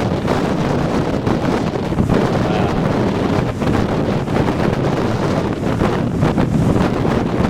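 Heavy storm surf rolling in and breaking, largely buried under strong wind buffeting the microphone: a loud, steady rumble.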